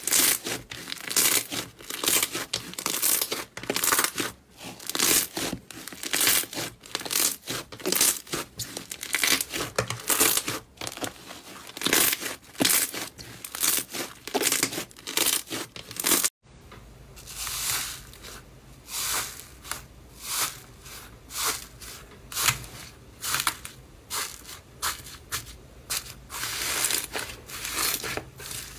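Hands kneading and pressing thick slime, giving rapid crackling, tearing sounds as it is squeezed and pulled apart. About halfway through it changes to a second slime worked in a metal tray, with quieter crackles over a steady low hum.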